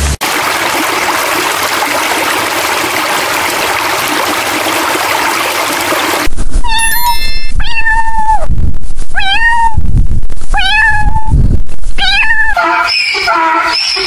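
A steady rushing noise with no clear source for the first six seconds, then a domestic cat meowing about six times, each meow rising and falling in pitch.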